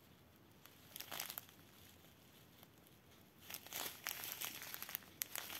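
Small plastic zip-lock bags of diamond-painting drills crinkling as they are handled. There is a brief crinkle about a second in, and steadier crinkling from the middle on.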